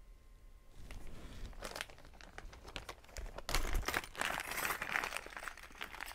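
Packaging crinkling and tearing as a small parcel is opened by hand, sparse at first and busiest in the second half.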